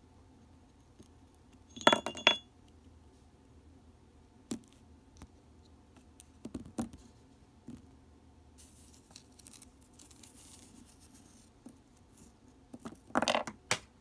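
A small metal pot clinks and clatters with a brief ringing note about two seconds in, then a few light knocks and scrapes, and a second louder clatter near the end.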